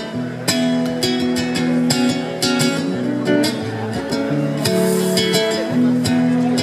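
Acoustic guitar strumming chords in a steady rhythm, each stroke ringing into the next, in an instrumental passage of the song.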